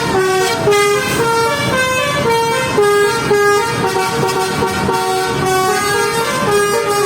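Bus telolet basuri horn playing a tune: a multi-note air horn stepping quickly from one held pitch to the next.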